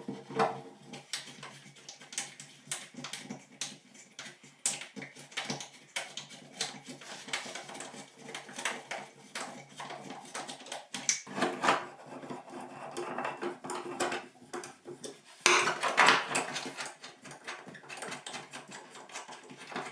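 Irregular small clicks, taps and scrapes of hand tools against metal and rubber drain parts as work goes on at a bathtub's overflow opening. A louder, denser stretch of scraping comes about three-quarters of the way through.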